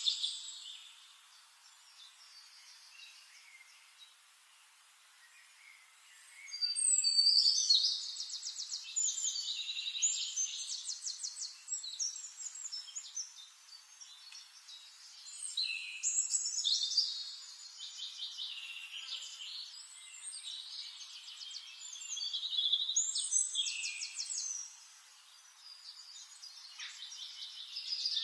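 Forest songbirds singing: bouts of fast, trilled, high-pitched song that begin about six seconds in and return several times with short pauses between.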